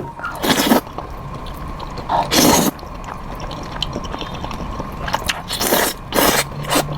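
Close-miked ASMR eating: four short, loud mouth noises of biting and chewing, with quieter small mouth clicks between them.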